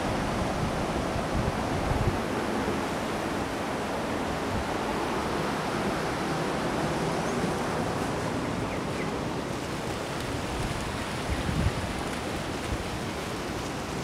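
Steady rush of wind and sea surf, with wind buffeting the microphone now and then, most around two seconds in and again late.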